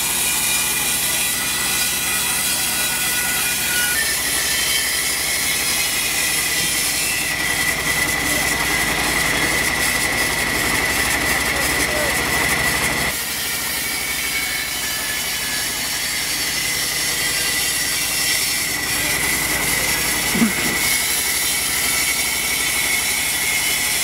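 Sawmill band saw running and cutting lengthwise through a log: a steady, loud mechanical noise with a high sustained whine. The sound shifts abruptly about halfway through, and there is a single short knock near the end.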